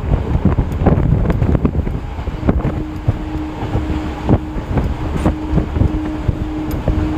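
EMU local train running, heard from on board: wheels clattering over the rail joints under a steady rumble, with wind rushing in through the open doors or windows. A steady hum joins about two and a half seconds in.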